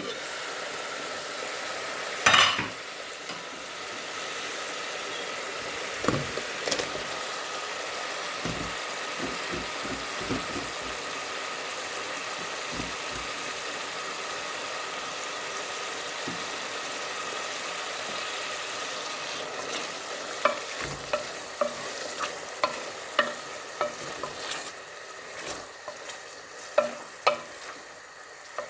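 Boiled spinach sizzling steadily as it fries in a pan, stirred with a spatula. There is one loud clatter about two seconds in, and quick spatula knocks and scrapes against the pan in the last third.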